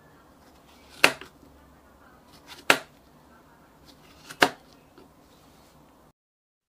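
Kitchen knife slicing through a strawberry onto a plastic cutting board: three sharp knocks of the blade meeting the board, about a second and a half apart.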